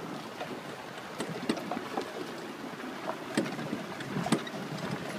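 Utility cart rolling slowly along a dirt and gravel drive: steady crunch of tyres on gravel, with scattered sharp clicks and knocks as the cart and its load rattle over the bumps.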